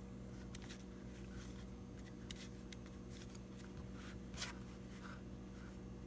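Two-part epoxy being stirred on a piece of cardboard: faint, irregular scraping and light tapping, with one sharper click about four seconds in, over a steady low hum.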